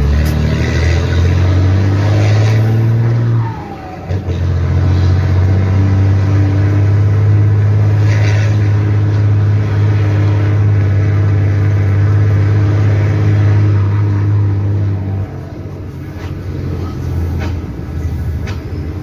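Mercedes-Benz 1620 truck's six-cylinder turbodiesel pulling steadily, heard from inside the cab. About three and a half seconds in, the note dips briefly for a gear change and comes back a little lower. It holds steady, then falls quieter near the end as the throttle eases.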